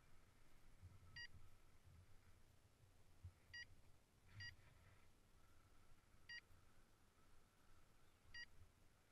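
Five faint, short electronic beeps, each the same pitch, at irregular gaps of about one to two seconds, over a light low rumble of wind on the microphone.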